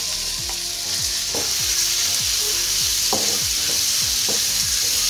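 Raw chicken pieces sizzling steadily in a hot wok with oil, garlic and chilies, just added to the pan. A spatula stirs them, scraping against the wok now and then.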